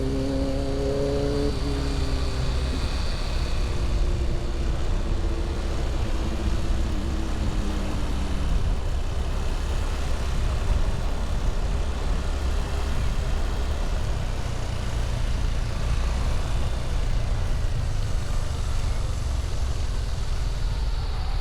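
Vehicle on the move: steady engine and road rumble with wind noise, the engine note sliding slowly down and fading over the first several seconds as it eases off.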